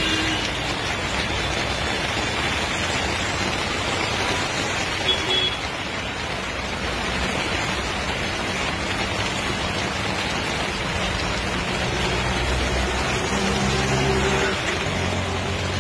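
Steady hiss of rain on a wet road mixed with passing-vehicle noise, a low engine hum growing stronger near the end.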